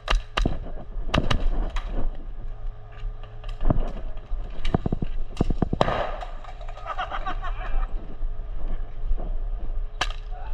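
Airsoft guns firing: sharp snapping shots, some in quick runs of two or three and some single, with distant players shouting about six to eight seconds in.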